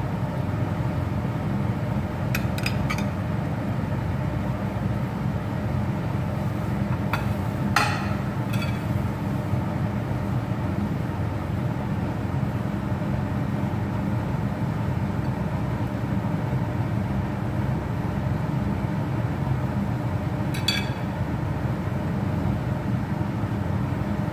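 A few light clinks of a metal utensil against a glass dish, the loudest about eight seconds in, over a steady low background hum.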